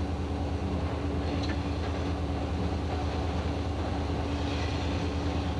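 Diesel locomotive running under way, heard from inside its cab: a steady low engine drone with a constant hum over it.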